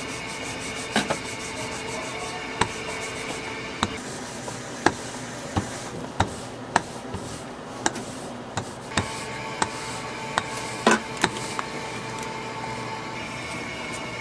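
Metal rolling pin rolling out laminated butter pastry dough on a stainless steel worktable: a soft rubbing with about fifteen sharp, irregular clicks and knocks.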